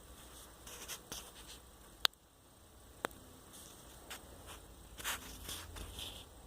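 A pug's faint, breathy snoring, a few rasping breaths a couple of seconds apart, over a steady low hum. Two sharp clicks come about two and three seconds in.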